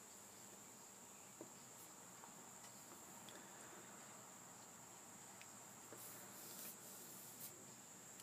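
Near silence: faint room tone with a steady high-pitched whine, and a few faint scratches of a paintbrush on sketchbook paper near the end.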